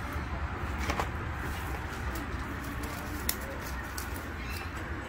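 A few sharp clicks and knocks as a landing net is lifted from the water and handled, over a steady low rumble, with a bird calling faintly in short low-pitched notes.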